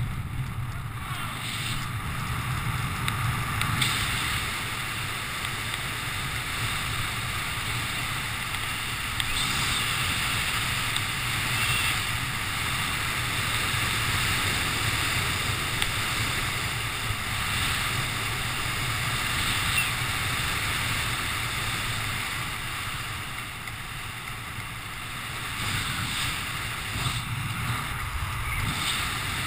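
Steady rush of wind over a helmet camera's microphone while flying under an open parachute canopy.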